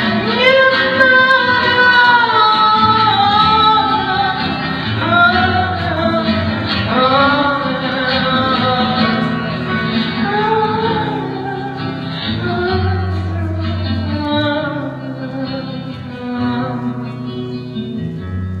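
Music with singing: a sung melody wavering over a steady bass line, growing somewhat quieter in the last few seconds.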